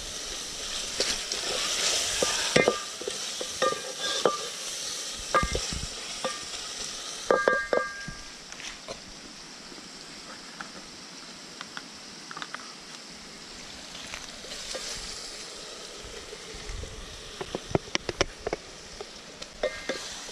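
A tomato mixture sizzling and frying in a pot while a spoon stirs it, the spoon clinking against the metal pot several times in the first eight seconds and again near the end.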